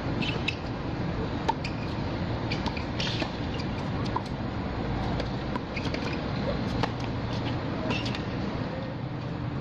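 Tennis rally on an outdoor hard court: scattered sharp racket-on-ball strikes and shoe squeaks over a steady low background hum.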